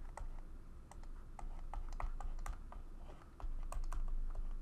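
Stylus tip clicking and tapping on a tablet screen while handwriting: irregular sharp clicks several times a second over a low hum.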